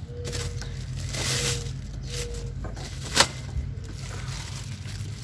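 Cardboard and paper packing rustling and crinkling in bursts as it is pulled off a new electric lawn mower, with one sharp snap about three seconds in.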